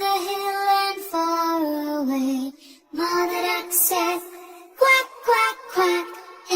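A children's song with a high child-like or synthetic singing voice over music, sung in held notes and short phrases, with a brief pause about three seconds in.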